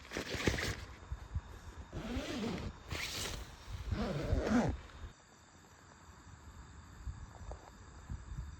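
A cat meowing twice, each call rising then falling in pitch, between short bursts of rustling.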